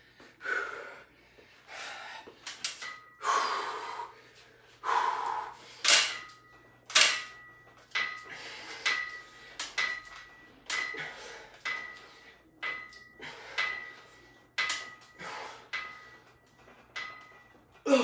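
A cable pulley machine worked in steady reps, about one a second, with heavy breathing at each pull. The weight stack clicks and clanks with each rep, and from about three seconds in the pulley gives a short high squeal on every pull.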